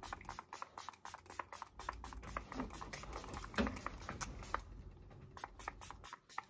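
Makeup setting spray pumped at the face in a quick run of short spritzes, about four or five a second.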